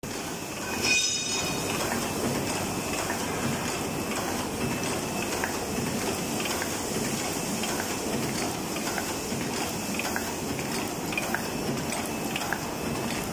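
Paper cup making machine (4 oz cups) running steadily, with continuous mechanical clatter and rapid small clicks. A brief louder burst with a high ringing tone about a second in.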